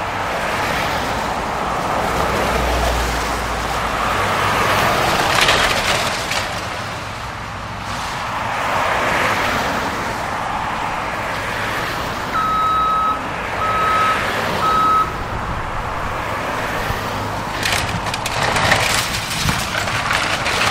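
Traffic passing on a wet road, its tyre hiss swelling and fading several times over the steady running of a wheeled excavator's diesel. About two-thirds of the way through, a backup alarm sounds three steady beeps. Near the end come sharp cracks and crunches of wood as the house is torn apart.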